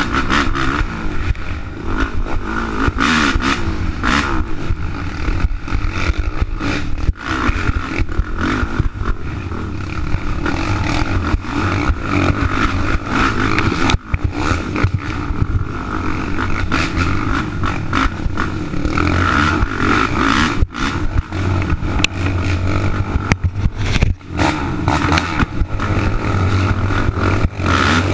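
Race quad (ATV) engine running hard on a rough dirt trail, heard from the machine's own mounted camera, its level dipping sharply several times.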